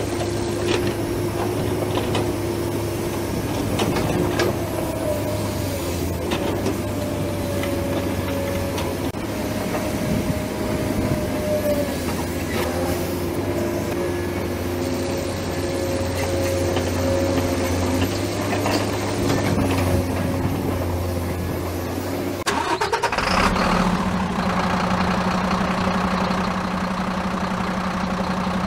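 Truck-engine drone for the remote-control dump truck and excavator at work, several steady tones wavering slightly, with scattered clicks. About 23 seconds in the engine note sweeps up and settles into a new steady drone as the loaded miniature dump truck drives off.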